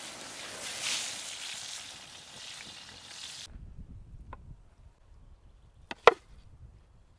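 A steady crackly hiss cuts off abruptly a little over three seconds in. It is followed by a quieter stretch with a low rumble and a few sharp knocks, the loudest a pair of knocks about six seconds in.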